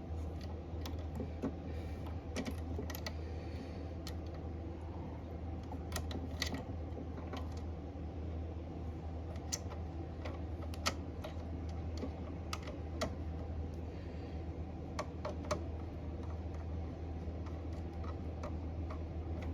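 Scattered small clicks and taps of a flathead screwdriver working the metal terminal screws of an AR siren timer, over a steady low hum.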